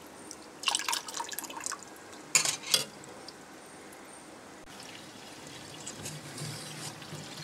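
Red lentils being rinsed in a steel pot under a running kitchen tap: a few short splashes and knocks in the first three seconds, then the tap's stream running steadily into the water, slowly growing louder.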